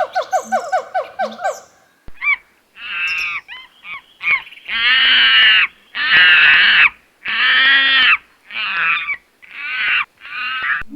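Goose honking: a run of about seven loud, harsh calls, each about a second long and evenly spaced. Before them comes a short repeating electronic jingle.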